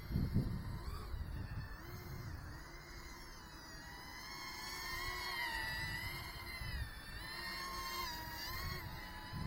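A 2-inch micro FPV quadcopter's brushless motors and propellers whining, the pitch rising and falling as the throttle changes, over a low rumble of air on the microphone that swells briefly near the start.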